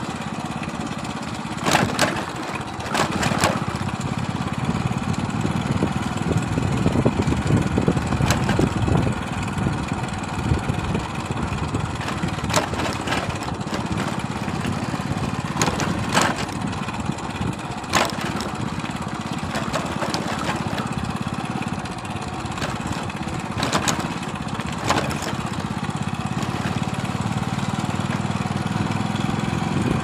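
Small vehicle engine running steadily under way on a rough dirt lane: a continuous low rumble broken by scattered sharp knocks and rattles.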